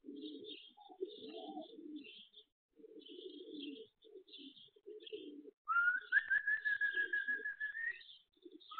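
Pigeons cooing in repeated low bursts, with short high chirps of small birds. About two-thirds of the way through, a loud, steady high whistle starts, edging slightly upward, and lasts about two seconds. It breaks off and starts again, rising, near the end.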